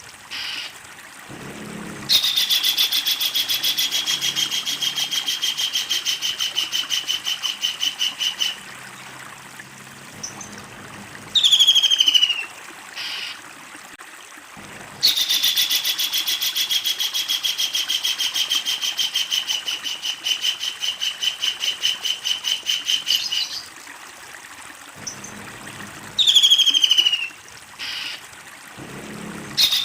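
A kingfisher calling: two long, loud, rapid rattling series of repeated notes, each lasting several seconds, with short calls falling in pitch in between.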